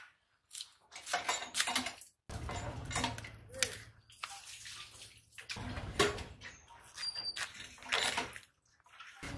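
A cauliflower being cut into florets on a boti, the upright curved blade of Bengali kitchens: uneven bursts of crunching and snapping as the stalks are cut and pulled apart.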